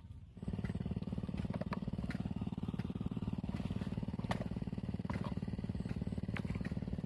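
A small engine running steadily with a rapid, even putter, starting abruptly about half a second in. A few faint clicks sound over it.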